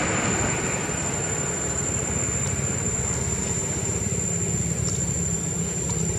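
Steady low hum of a motor engine running, with a thin high-pitched whine held steady above it.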